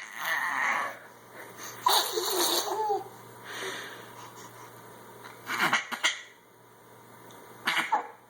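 Playful vocal noises made with the voice and breath: about five short breathy, sputtering bursts, one with a brief squeaky rise and fall about two seconds in.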